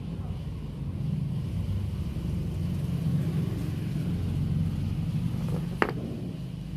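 Steady low hum of a power tool cutting through the welded steel shell of a fridge compressor, with one sharp click near the end.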